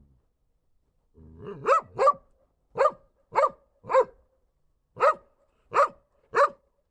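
Dog barking: a brief low growl runs straight into a string of about eight sharp barks, mostly in pairs, after about a second of silence.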